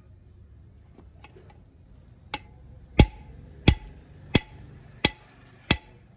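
Hammer striking a steel drift punch held against a gear in a truck gear housing, metal on metal, to drive the gear out. A couple of light taps, then six hard, evenly spaced blows about two-thirds of a second apart, each with a short ring.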